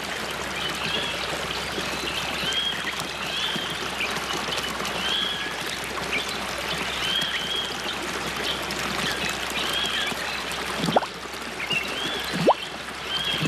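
Running stream water with small birds giving short high chirps about once a second; in the last few seconds a few quick rising bubbling plops.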